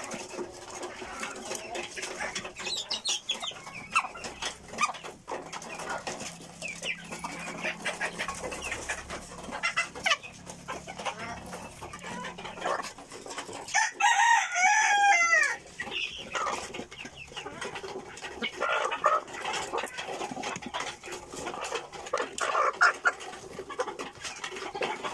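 A flock of chickens clucking while they peck at feed, with many sharp pecking clicks. About halfway through, a rooster crows once, the loudest sound here.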